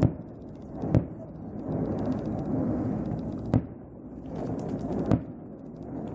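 Fireworks aerial shells bursting: four sharp bangs at uneven intervals over about five seconds, with a steady low background noise between them.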